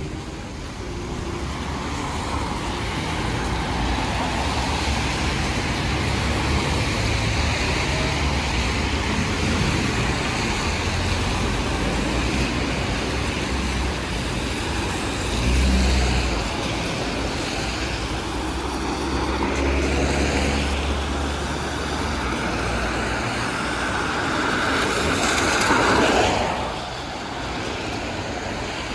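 Road traffic on a wet street: cars going by with tyre hiss on the wet road and engine rumble. One vehicle passes close, loudest about 26 seconds in, then the sound drops off suddenly.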